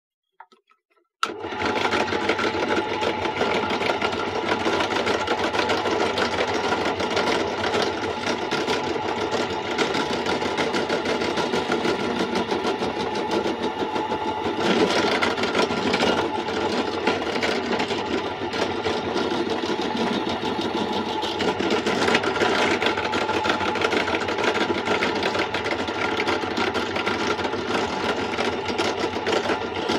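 Benchtop drill press running steadily, its bit boring a clearance hole down through a small wooden block. The motor noise comes in abruptly about a second in.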